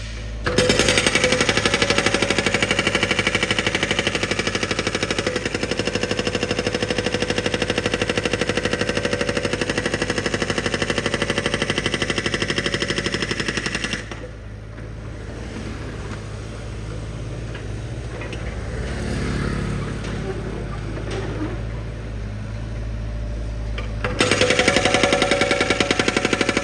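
Drilling machine's percussive hammer pounding rapidly and steadily. About 14 seconds in it stops for some ten seconds of quieter running and rumbling, then the hammering starts again near the end.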